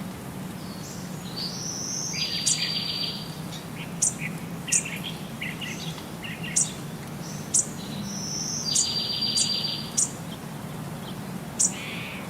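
Small birds singing: short, sharp high chirps about once a second, with a buzzy trill about a second and a half in and another about nine seconds in, over a low steady hum.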